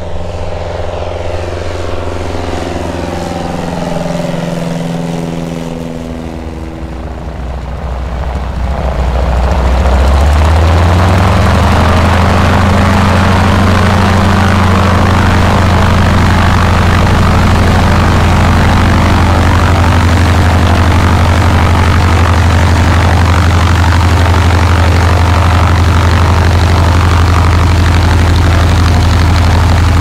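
Propeller airplane's piston engine running close by. Its note falls in pitch over the first few seconds, then about ten seconds in the power comes up to a loud, steady drone with strong propeller noise.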